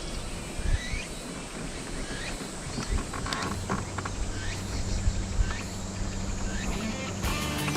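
Outdoor ambience with a short rising chirp, likely a bird's call, repeated about once a second over a steady background hiss. A low steady hum comes in about four seconds in.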